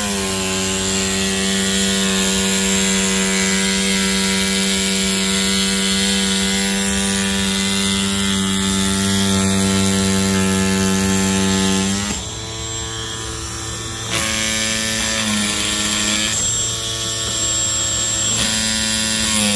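Stepper motors of a TimSav CNC foam cutter driving the gantry: a steady pitched whine that holds for about twelve seconds, then changes pitch several times in shorter runs as the moves change.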